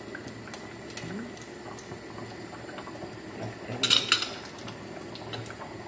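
A metal spoon stirring and clinking in a stainless steel pot of simmering beans, with a louder burst of metal clinks about four seconds in, over a faint steady sizzle of oil in a frying pan.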